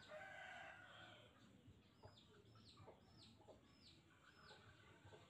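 Faint chicken calls: a string of about six short, high, downward-sweeping peeps, with clucking in the first second.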